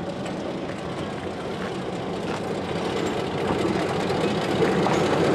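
V/Line Y class diesel-electric locomotive engine running at low throttle as the locomotive rolls slowly closer, with a steady hum that grows louder.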